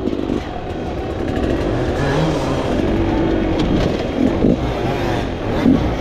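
Dirt bike engines running and revving, the pitch rising and falling as the throttle changes.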